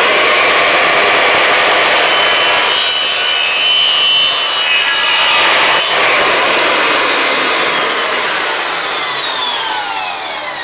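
Bosch drop saw (mitre saw) cutting through 90 mm PVC stormwater pipe, with a loud, steady blade-and-motor noise. About six seconds in the motor is let go, and its whine falls in pitch as the blade spins down to a stop.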